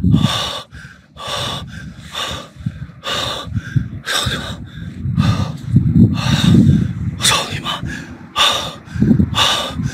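A man panting hard while running, loud rapid breaths about two a second, with low rumbling from movement on the microphone.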